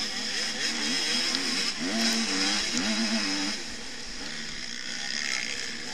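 Motocross bike engine revving up and down as the rider works the throttle, heard from a camera mounted on the bike, with a steady hiss of wind over the microphone. The pitch climbs and drops several times about two seconds in.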